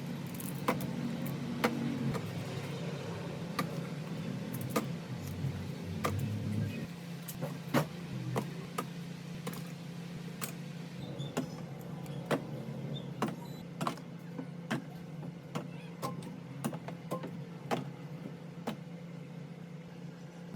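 Irregular light clicks and knocks of grocery items and containers being set down and shifted on refrigerator shelves, over a steady low hum.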